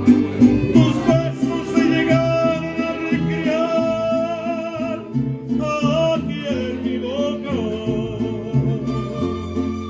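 A mariachi group playing live at the table: violins carry a melody of long notes with vibrato over a steady, pulsing low string accompaniment.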